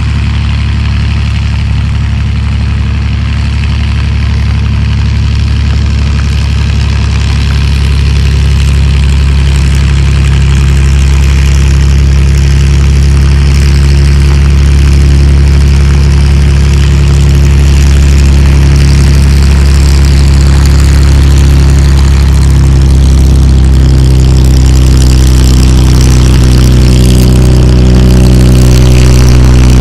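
P-51D Mustang's Merlin V-12 engine and propeller running steadily with a loud, deep drone, growing slightly louder over the stretch.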